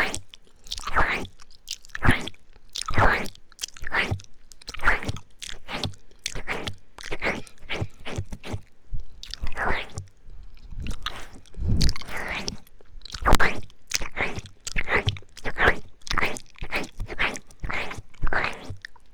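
Close-miked wet mouth sounds of ASMR ear eating: lips and tongue smacking and licking in an unbroken run of strokes, one or two a second.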